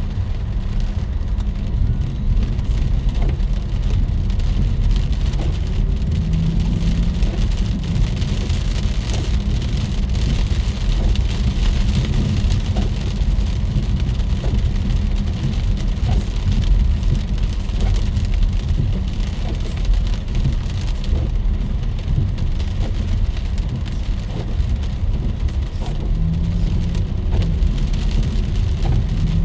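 Heavy rain falling steadily, with a strong constant low rumble beneath the hiss of the downpour.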